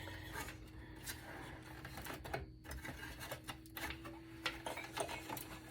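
Scattered light clicks and clatter of desktop computer parts being handled and pulled during disassembly, over a faint steady hum.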